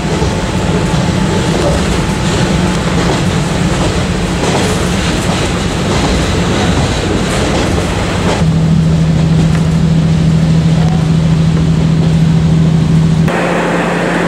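Inside a KiHa 40 diesel railcar running on its original-type DMF15 diesel engine: a steady engine drone under rail and running noise. About eight seconds in the running noise drops away, leaving a strong steady engine hum. Near the end a cut brings a different steady hum.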